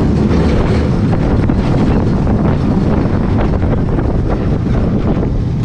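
Wind buffeting the microphone over the rumble and clatter of a Zierer steel roller coaster train running along its track.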